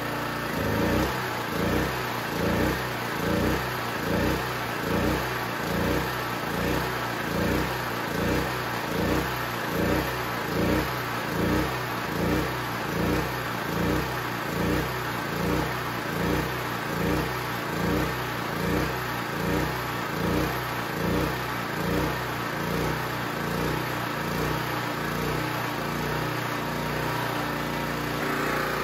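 Champion generator's Honda GX270-clone single-cylinder engine running on propane, its speed surging up and down about every 0.8 seconds: governor hunting, with the propane carburettor's mixture not yet tuned in. The surging starts about a second in and steadies near the end.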